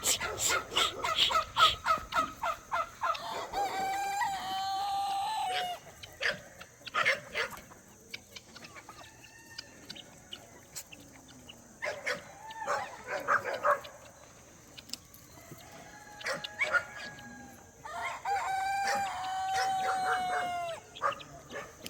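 Chickens clucking in a fast run, then a rooster crowing about three seconds in and again near the end, with scattered clucks and calls between the crows.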